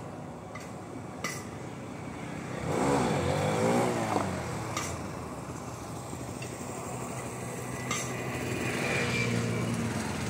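Motorcycle engine revving up and down several times about three seconds in, then running steadily and coming close near the end. A few sharp clicks are heard along with it.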